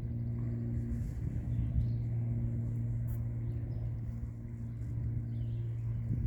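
A steady, low-pitched mechanical hum over a rumble, unchanging in pitch.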